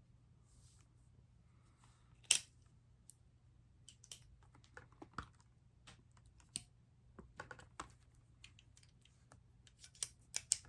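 Scattered light clicks and taps of a small cardboard perfume box being handled, with one sharper click about two seconds in and the taps coming more often near the end.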